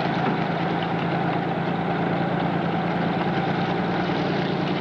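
Boat engine running at a steady idle, an even low drone with no change in pitch.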